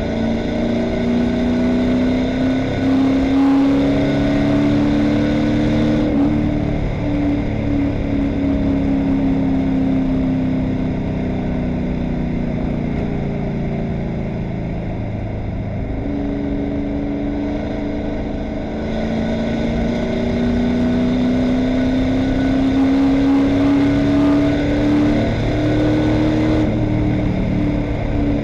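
Stock car's V8 engine heard from inside the cockpit on track: it pulls up in pitch at the start, eases off and drops lower through a corner in the middle, then climbs steadily again down the straight.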